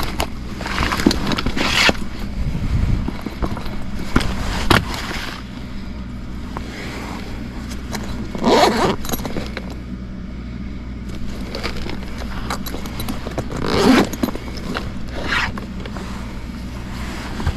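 Sheet-metal access doors of a Goodman gas furnace being pulled off, scraping and rattling in several separate bursts over a steady low hum.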